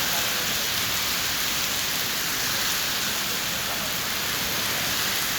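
Heavy rain pouring down in a steady hiss, pattering on the street and surfaces.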